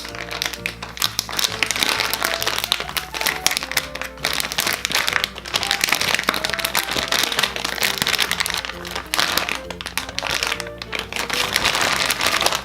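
Plastic squishy packaging crinkling and rustling as it is handled and torn open, over background music with steady notes.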